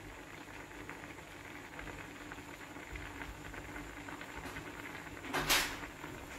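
Ash gourd curry bubbling in a clay pot on the stove: a steady hiss with fine crackling pops. There is one brief louder burst of noise about five seconds in.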